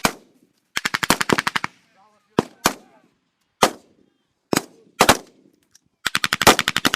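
Small-arms gunfire. A rapid automatic burst of about ten shots is followed by single shots spaced roughly a second apart, then another long rapid burst near the end.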